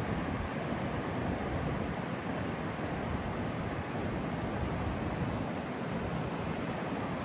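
Steady rushing outdoor noise with no pitch or rhythm, heaviest in the low end.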